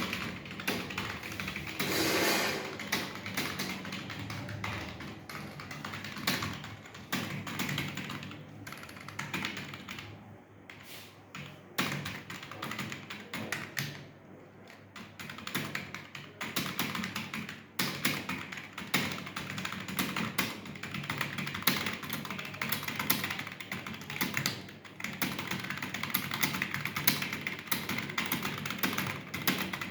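Fast typing on a computer keyboard: a rapid, continuous stream of key clicks, with a couple of brief pauses about a third and halfway through.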